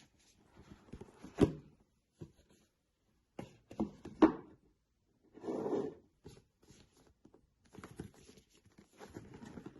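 Hands handling a watch's packaging: a few sharp knocks and taps, one rustling scrape past the middle, and quieter fiddling noises in between.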